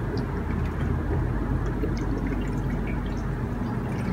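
Distilled water pouring and dripping into a custom PC water-cooling loop's reservoir as it is filled, with the loop's pump just switched on and running under a steady low hum and small dripping ticks.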